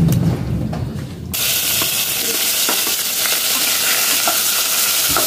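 Onion, ginger, tomato and chillies sautéing in hot oil in a pot: steady sizzling that starts abruptly about a second in, after a low hum, with a few light clicks from the utensil stirring.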